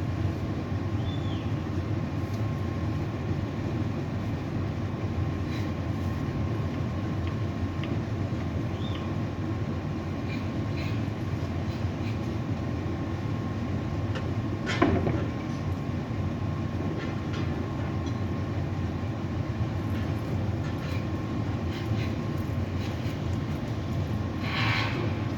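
Tower crane machinery running: a steady low rumble with a faint steady whine, and a single sharp knock about fifteen seconds in.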